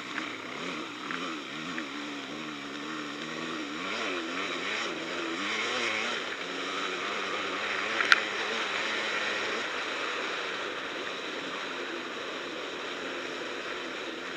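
Off-road enduro engine running along a dirt trail, its pitch rising and falling as the throttle opens and closes, over a steady rush of wind and trail noise. A sharp knock about eight seconds in.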